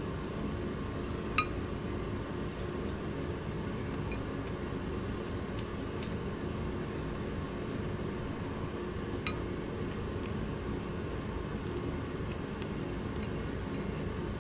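A steady low hum with a few sharp, ringing clinks like hard objects tapped on glass or dishware, the loudest about a second and a half in and fainter ones around six and nine seconds.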